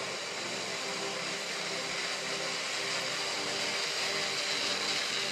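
Zipline trolley pulleys running fast along the steel cable: a steady hissing whir that grows slightly louder toward the end.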